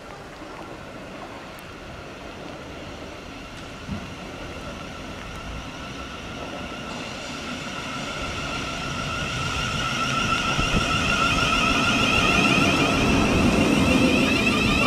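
Class 707 electric multiple unit drawing in to a station platform: its motor whine and the rumble of wheels on rail grow steadily louder as it comes alongside. A single knock about four seconds in.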